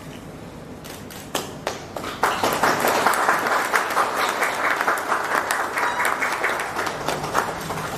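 Applause: a few scattered claps, then steady clapping from about two seconds in that dies away near the end.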